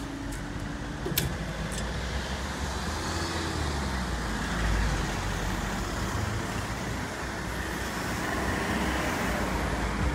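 Road traffic, cars and a van, driving over a railway level crossing after the barriers have lifted: a steady noise of engines and tyres that swells as vehicles pass close. A single sharp click about a second in.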